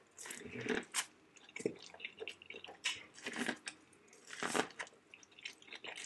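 A person biting kernels off an ear of corn on the cob and chewing, close to the microphone, with irregular crunches and wet mouth sounds.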